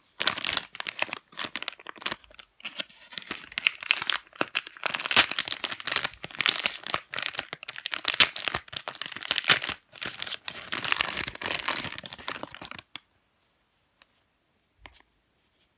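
Resealable plastic packaging bag of a squishy toy being handled and opened: a long run of irregular crackling and crinkling that stops about 13 seconds in.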